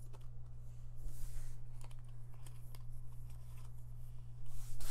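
Hands handling a small plastic model horse: soft rustles and a few light clicks as it is turned over and set down, with a louder rustle near the end. A steady low hum runs underneath.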